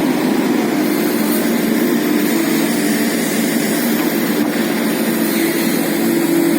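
Diesel engine of a JCB backhoe loader running steadily at a constant speed.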